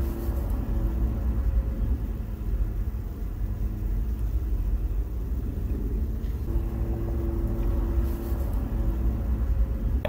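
Steady low rumble of a running vehicle, heard from inside its cabin. A faint steady hum comes in and out near the start and again past the middle.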